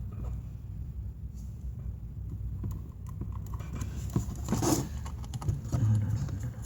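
Small tools and parts being handled on a repair bench: scattered light clicks and taps, with a brief scraping rustle about four and a half seconds in, over a low steady hum.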